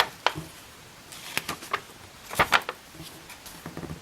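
Handling of a paper picture book, probably a page being turned: a few short clusters of sharp papery clicks and rustles.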